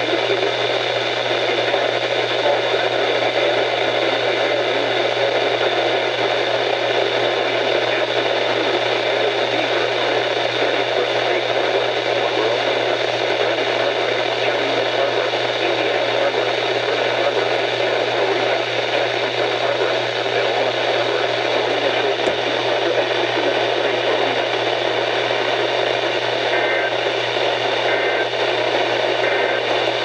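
Midland NOAA weather radio tuned to 162.550 MHz, playing steady static hiss with a low hum underneath.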